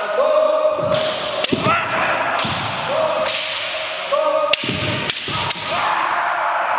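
Kendo sparring: bamboo shinai striking with several sharp, echoing cracks, feet stamping with thuds on the wooden floor, and long drawn-out kiai shouts from the fencers.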